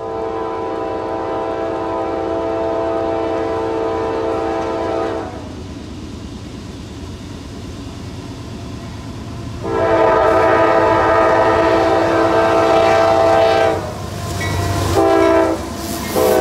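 Freight locomotive's air horn blowing the grade-crossing signal: two long blasts, a short one, and the start of a final long one. The train's low rumble rises near the end as it arrives.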